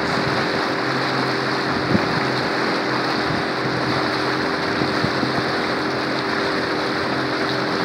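A small boat's motor running steadily with an even hum, over the hiss of water and wind as the boat moves along.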